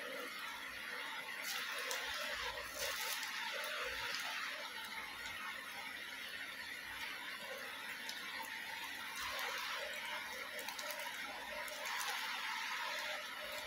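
Rustling and crinkling as hands move plastic-wrapped lollipops about on an artificial grass mat, with a few light clicks.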